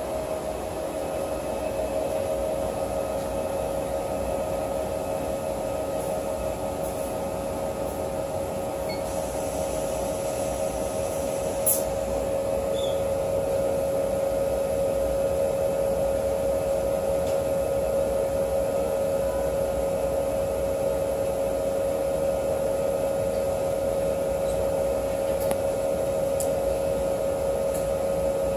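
Accretech UF2000 wafer probing machine running while it loads a wafer: a steady hum with a strong mid-pitched tone and a fainter higher one. A single sharp click about twelve seconds in.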